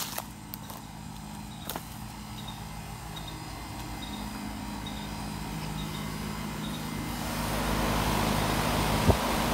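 Outdoor air-conditioner condenser unit running, a steady hum with fan noise that grows louder over the last couple of seconds as the phone nears the spinning fan. A single knock near the end.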